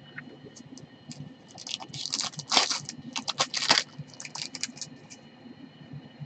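Crackling and clicking of hockey trading cards and a foil card pack being handled, densest from about one and a half to four seconds in.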